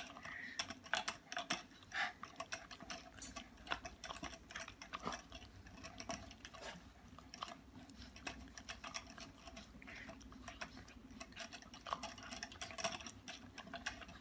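Puppies drinking from a hanging water bottle, licking and chewing at its metal spout: a rapid, irregular stream of small clicks and ticks with wet lapping.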